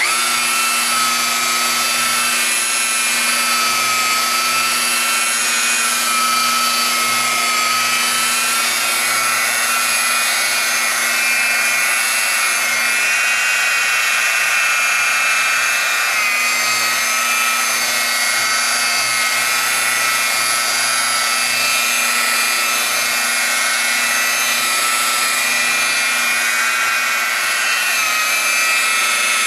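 Electric car buffer running steadily, polishing 3M machine polish into wet-sanded, hazed clear coat on a car hood. It makes a steady whine that dips a little in pitch now and then.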